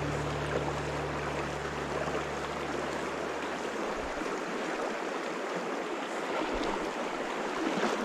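Shallow mountain stream running over rocks: a steady rush of water. A low held note of music fades out in the first half.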